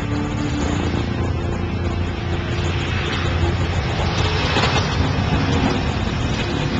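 Boeing C-17 Globemaster III's four Pratt & Whitney F117 turbofan engines running at high power: a steady, dense jet roar that grows somewhat louder.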